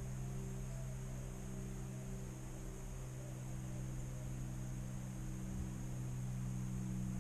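Vehicle engine running at a steady speed, a low even hum, picked up through a GoPro's enclosed case.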